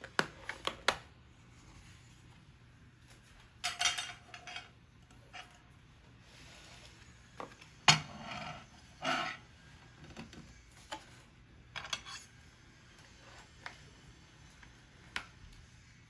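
Household objects being handled: scattered clicks, clinks and knocks with a few short scraping sounds, including a quick run of clicks at the start and the loudest knock about eight seconds in.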